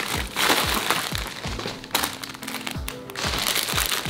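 Background music with a steady beat, over the crinkle and rustle of a paper mailer being handled and cut open.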